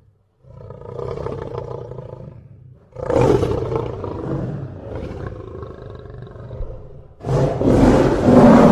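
Lion roaring: three separate roars, each louder than the one before, the last and loudest starting about seven seconds in.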